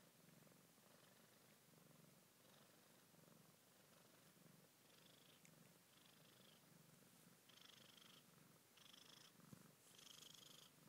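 A nursing mother cat purring softly in slow, even pulses. Several short high-pitched squeaks come in over the second half.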